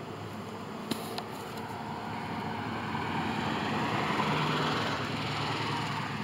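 A car passing by: a rush of road noise that swells to its loudest about four seconds in and then fades, with two short clicks about a second in.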